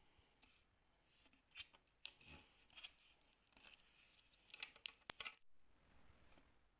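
Near silence with faint, scattered clicks and rustles of objects being handled, the sharpest click about five seconds in.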